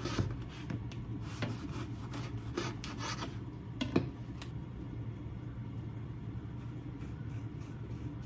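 Knife sawing through a crusty baguette on a wooden cutting board, each stroke a sharp rasp of the crust, for about the first four and a half seconds; then fainter scraping as garlic paste is spread onto the slices with a spoon. A low steady hum runs underneath.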